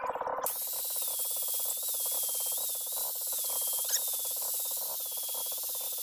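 Angle grinder grinding a piece of stainless steel: a steady hiss with the motor's high whine wavering up and down as the disc is pressed against the metal. A short click about four seconds in.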